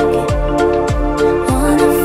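Background music, an electronic remix: a steady kick drum a little under two beats a second under sustained held chords.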